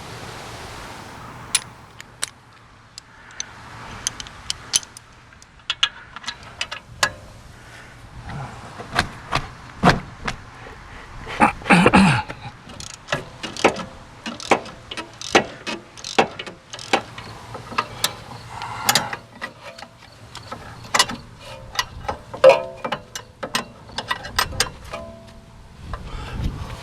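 Hand tools working the rear brake caliper bolts on a 2012 Ford Focus: irregular metallic clicks, knocks and clanks, with a loud cluster about twelve seconds in.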